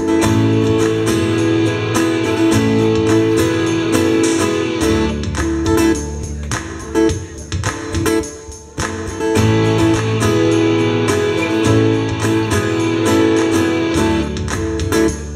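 Live rock music without vocals: an amplified guitar strumming chords over a steady beat, with short breaks about six and nine seconds in.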